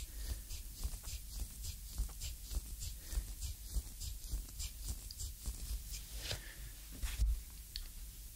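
Wooden reflexology stick grinding into the sole of a bare foot, a quick series of short scratchy scrapes about four a second, with a couple of louder scrapes near the end.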